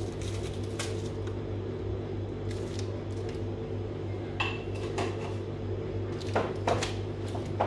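Scattered light clicks and crinkles of a clear plastic fruit punnet as raspberries are picked out of it by hand, about eight short taps over a steady low hum.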